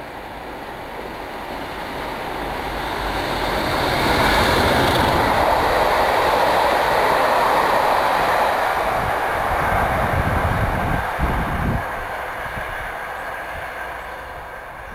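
A British Rail Class 37 diesel locomotive hauling passenger coaches passes close by. Its sound builds to a peak about four seconds in as it runs beneath, the coaches keep rumbling past, and the noise fades away after about eleven seconds.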